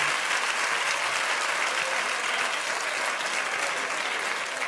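Studio audience applauding steadily, the dense patter of many hands clapping at once.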